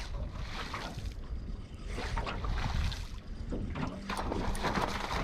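Wind buffeting the microphone, with water slapping against the hull of a small aluminium boat. A short steady low hum comes in about four seconds in.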